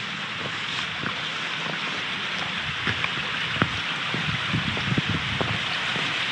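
Steady rushing of the creek pouring over the lip of Falling Water Falls, with a few faint clicks scattered through it.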